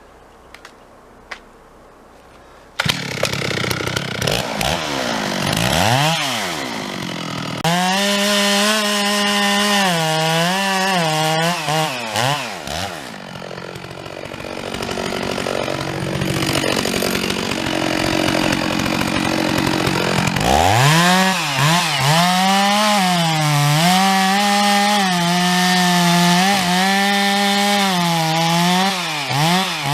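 Two-stroke chainsaw coming in suddenly about three seconds in and revving, then running at high throttle with its pitch dipping and recovering under load as it cuts into a tree. It eases off for several seconds midway, then bears down again.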